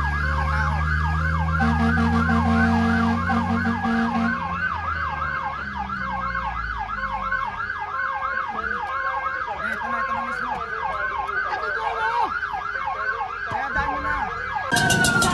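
Fire truck's electronic siren in a fast yelp, its pitch rising and falling about four times a second, over a low rumble that fades out about halfway through. Just before the end the siren stops with a falling tone.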